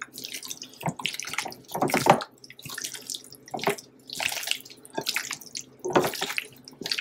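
Gloved hand squishing and tossing raw chicken pieces coated in wet mustard in a glass bowl, giving irregular wet squelches and slaps about once or twice a second.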